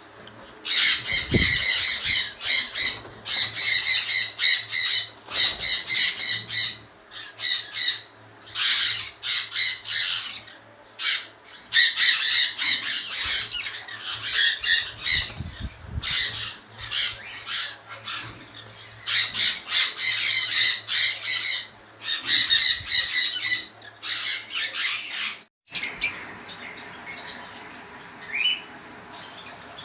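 Caged small parrots screeching harshly in repeated bursts of a second or two, one after another. After a sudden break near the end only a few fainter chirps are left.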